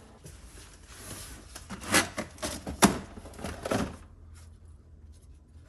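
Items being handled and shifted in a storage box: a few sharp knocks and clatter, the loudest about three seconds in, then quieter rustling.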